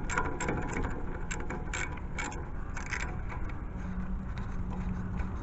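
A 1/4-inch drive ratchet clicking in short irregular runs as it backs out a 10 mm bolt. The clicking dies away about three seconds in, and a steady low hum carries on after it.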